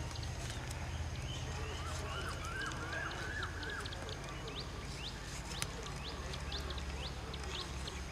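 Birds calling outdoors: many short rising chirps throughout, with a run of arched, repeated calls about two to three and a half seconds in, over a steady low rumble.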